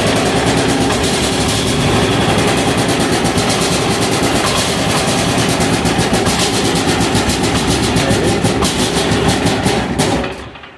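186FA single-cylinder air-cooled diesel engine running steadily on motor oil as fuel, with an even firing beat. About ten seconds in it dies out as it runs out of fuel.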